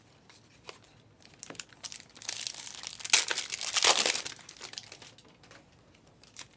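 Plastic-foil wrapper of a trading-card pack being torn open and crinkled, loudest for about two seconds in the middle, with a few small clicks of handling before and after.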